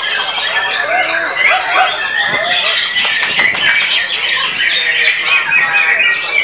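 White-rumped shama singing a rapid, varied song of whistles, glides and harsh notes, dense and overlapping throughout, with a short burst of clicks about three seconds in.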